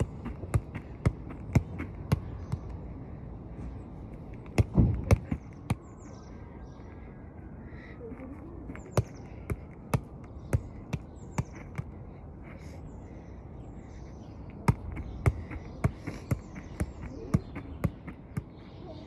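Football kept up with the feet: a run of sharp touches on the ball, about two a second, broken by a few pauses of a couple of seconds, with a heavier cluster of thumps about five seconds in.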